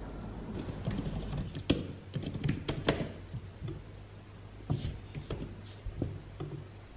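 Typing on a computer keyboard: irregular key clicks in two short runs, with a pause of about a second and a half between them.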